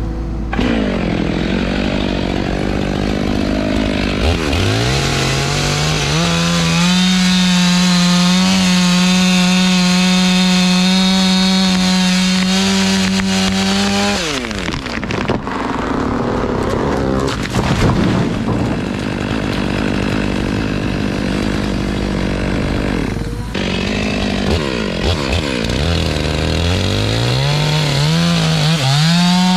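Stihl two-stroke chainsaw cutting into the trunk of a big poplar, held at high revs. The engine pitch drops and climbs back up several times as the throttle is eased and opened again.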